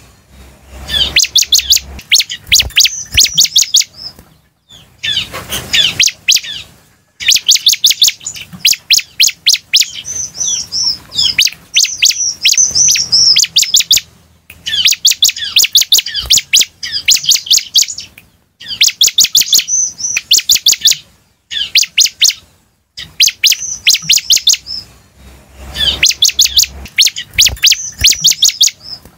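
Bar-winged prinia (ciblek) singing loudly: fast runs of sharp, high chirping notes, some sliding down in pitch, in phrases of a few seconds broken by short pauses.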